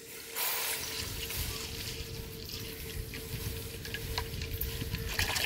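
Milk pouring in a steady stream into an aluminium karahi, splashing into the milk already pooled in the pan; the pouring sound comes in about half a second in.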